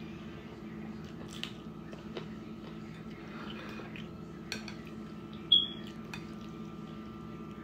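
Wooden chopsticks clicking against a plate a few times, the sharpest clink about five and a half seconds in, with soft chewing and a steady hum underneath.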